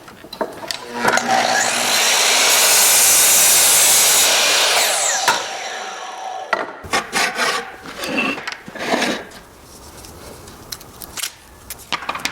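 A power saw cutting oak for about four seconds, its motor rising in pitch at the start and winding down at the end. Scattered knocks and taps of wood being handled follow.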